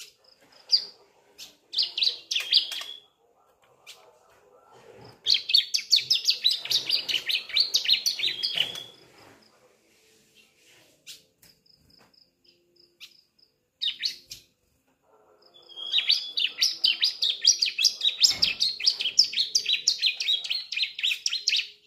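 Young bar-winged prinia (ciblek), a juvenile just beginning to sing: short high chirps, then two long runs of rapid, repeated high notes lasting several seconds each, with a few scattered chirps between them.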